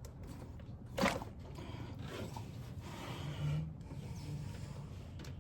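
Scraping and rubbing, with one sharp knock about a second in.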